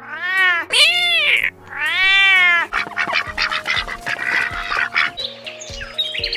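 A cat giving two long, drawn-out meows, each rising then falling in pitch, over background music. It is followed by a few seconds of busier clicking and rasping noise.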